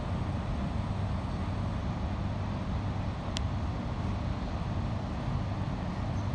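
Steady low rumble inside a Melbourne suburban electric train as it draws to a stop at a platform, with a single sharp click about three and a half seconds in.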